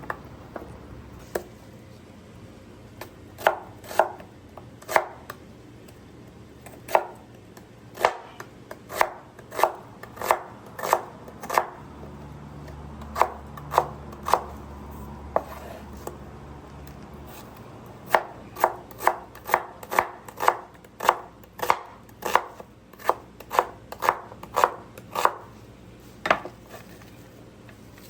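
Kitchen knife chopping food on a cutting board: single sharp strokes at an uneven pace, about one or two a second, with a short pause in the middle.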